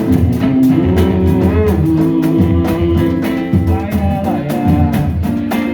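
Live pagode band playing: a sung melody over strummed strings and a steady pulse of deep drum beats and percussion.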